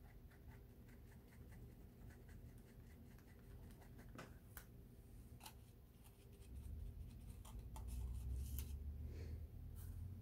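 Faint scratching and scattered light ticks of a thin paintbrush being rubbed over a crocheted yarn hat. A low rumble comes in about six and a half seconds in.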